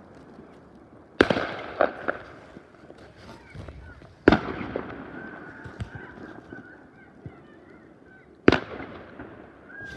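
New Year's fireworks going off: five loud bangs with echoing tails, three in quick succession about a second in, one near the middle and one near the end, with faint short wavering tones in between.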